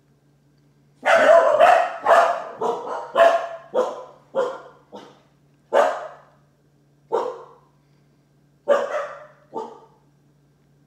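A dog barking: about a dozen barks, a quick run of them over the first few seconds, then single barks spaced a second or more apart.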